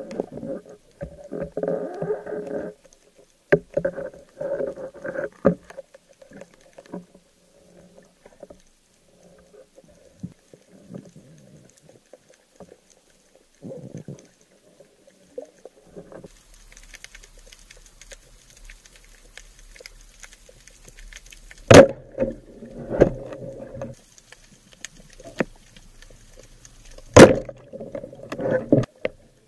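Underwater handling noise, muffled knocks and scuffs, then two sharp, loud cracks of a roller speargun firing, about five seconds apart, each followed by a short clatter.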